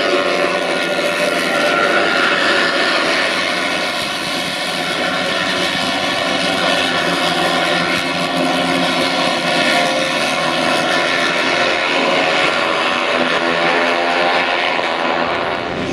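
A pack of racing motorcycles at high revs, many engines whining together at once as the bikes run through a corner.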